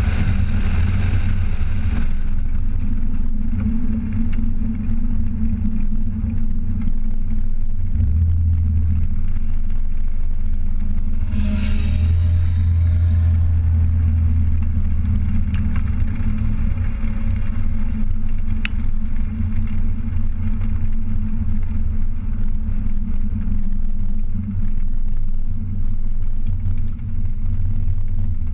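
Supercharged 3.8 L V6 of a 2001 Pontiac Bonneville SSEi driving on track, heard from a camera on the car's body under a constant low rumble of wind and road noise. About twelve seconds in the engine briefly rises in pitch under acceleration, then settles back.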